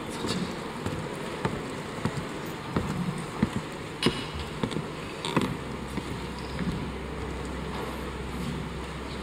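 Background noise of a large hall, with scattered knocks and clicks, the sharpest about three and four seconds in, and a low steady hum that comes in a little past the middle.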